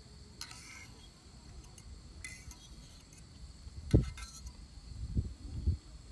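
Objects being handled: two short rustling, clinking bursts, then a few dull low thumps, the loudest about four seconds in.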